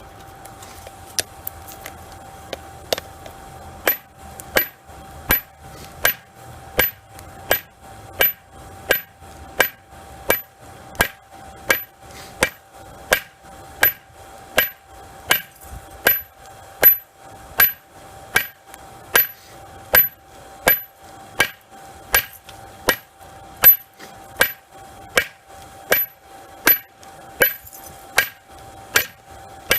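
Hand hammer striking a hot railroad spike on an anvil, drawing out the knife blade: a few scattered blows, then a steady rhythm of about one and a half strikes a second from about four seconds in. A faint steady tone runs underneath.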